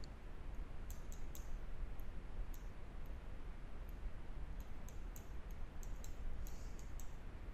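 Light, irregular clicks and taps of a stylus on a pen tablet as handwriting is added, over a steady low hum.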